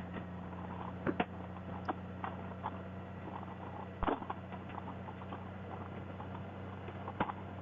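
Motorcycle engine idling steadily with a low hum, with scattered light clicks and ticks and a brief louder knock about four seconds in.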